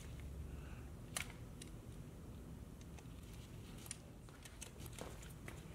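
Faint, scattered metal clicks of a hand tool on the engine's side-case bolts as they are being loosened, with one sharper click about a second in and a quick cluster near the end.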